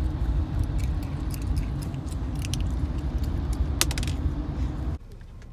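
Small dog licking and chewing, with light clicks and metallic jingles, over a low steady rumble that cuts off suddenly about five seconds in.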